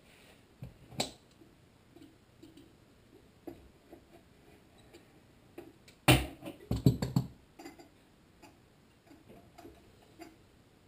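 Scattered light clicks and knocks of metal small-engine parts being handled, with a quick run of several louder knocks about six seconds in, as the loose carburetor is moved about on its linkage.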